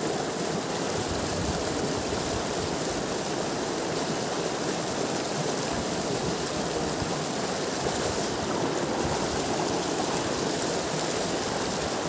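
Fast river water rushing and churning over a rocky bank: a steady, even rush of white water.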